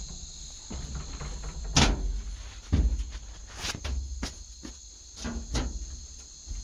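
Steady high-pitched insect chirring, typical of crickets, with about seven scattered knocks and clicks. The loudest are around two and three seconds in.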